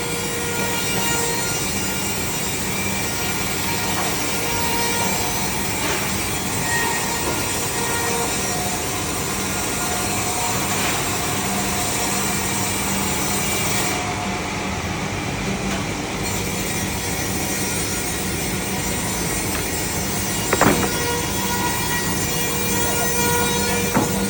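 Sawmill saw running steadily, sawing gõ hardwood, with a constant machine hum. Two short, sharp knocks near the end.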